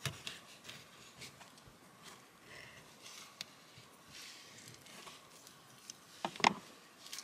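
Knife cutting through an avocado on a plastic chopping board: quiet taps, scrapes and squishes of the blade through skin and flesh, with one louder knock a little after six seconds in.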